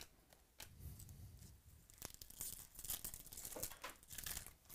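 Shiny foil wrapper of a Topps Chrome trading-card pack torn open and crinkled by hand, after a few light clicks of cards being handled.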